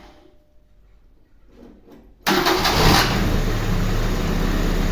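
Opel Kadett 1.3 carburetted petrol four-cylinder cranked by its starter and catching about two seconds in, then running steadily. It starts cleanly and runs evenly after its ignition faults (miswired ignition module, worn distributor rotor, leaking HT leads and fouled plugs) were put right.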